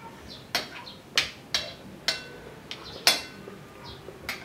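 Metal spoon and fork clinking and scraping against a ceramic plate during a meal. There are about seven sharp clinks, each with a short ring, and the loudest comes about three seconds in.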